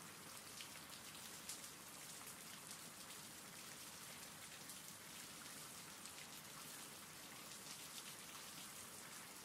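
Faint, steady rain: an even hiss with a fine patter of drops, from a rain-sounds background track.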